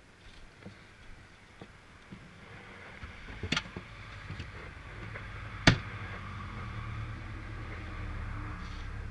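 ATV engine running with a low steady rumble that builds up a few seconds in and holds, with two sharp knocks along the way, the second the loudest. Light clicks come before the engine sound rises.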